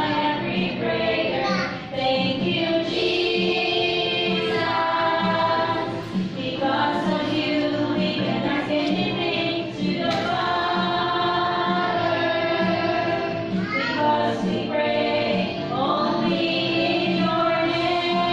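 A group of young children singing a song together as a choir.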